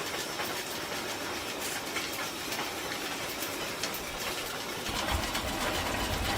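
Steady mechanical clattering noise with many small clicks, joined by a heavier low rumble about five seconds in.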